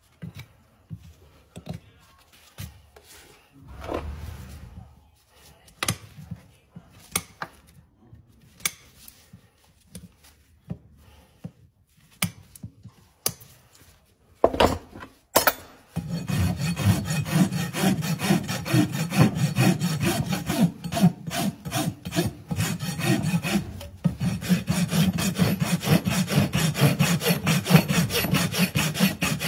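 Scattered scrapes and clicks of hand tools on a horse's hoof, then a couple of louder knocks about halfway. After that comes a farrier's rasp filing the hoof in rapid, steady strokes.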